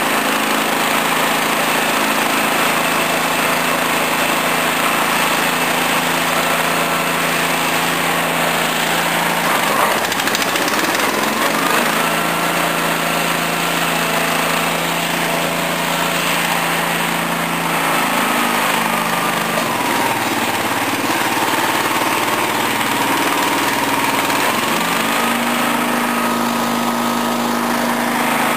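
Small ride-on lawn tractor engine running steadily, with a higher whine. Its speed dips and picks up again a few times. The owner says the engine has loads of speed but no torque.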